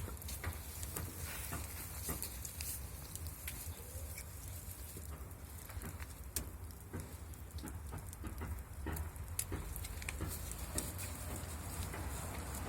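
Wood fire crackling with irregular sharp pops as sticks burn, over a steady low rumble.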